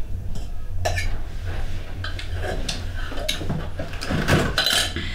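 Stainless steel bowls clinking and scraping as rice is eaten from them, a few scattered sharp knocks, over a low steady hum.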